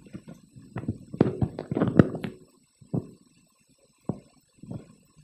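Handling noise at a laptop: a quick run of knocks and taps, then three single knocks spaced out.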